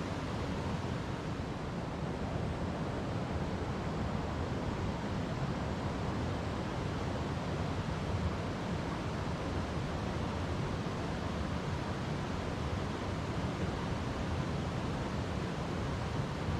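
River water flowing over rocks: a steady, deep rush that does not change.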